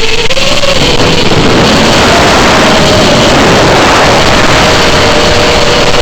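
FPV quadcopter motors and propellers whining loudly over heavy rushing noise, the pitch dipping and rising gently as the throttle changes.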